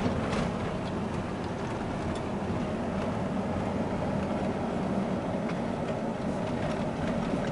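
Steady road noise of a car driving along a city street, heard from inside the cabin: engine and tyre hum with no distinct events.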